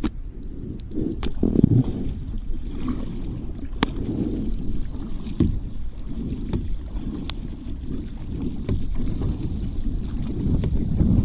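Kayak out on the water, heard through an action camera's microphone: a steady low rumble of wind and water, with a handful of sharp knocks at irregular intervals.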